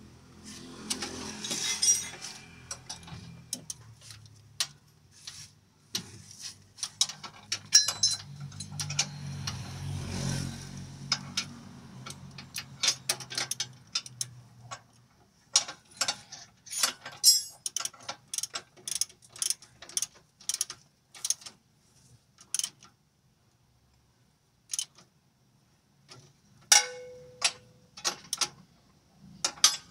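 Ratchet wrench clicking in quick runs of sharp clicks, with metal tools clinking. A low hum runs under the first half, and a single ringing clink comes near the end.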